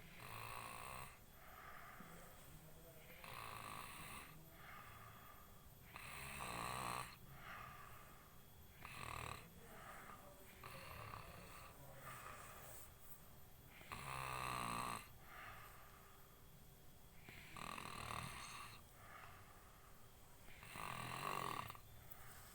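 A man snoring in his sleep: loud snores come about every three to four seconds, with quieter breaths between them.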